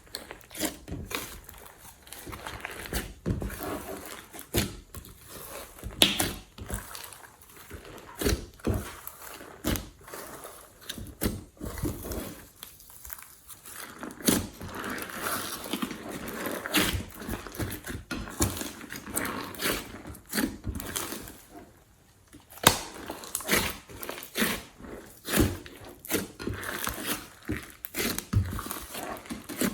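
Glossy slime being squished and stretched by hand, giving irregular sticky pops, clicks and crackles, with a brief lull about twenty-two seconds in.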